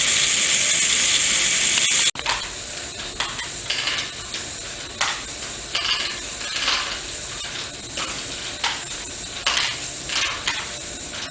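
LEGO Great Ball Contraption module (the Jigsaw) running, its motor-driven moving parts jostling small plastic balls: a dense, steady rattling clatter, then, after a sudden break about two seconds in, quieter irregular clicks and rattles of balls.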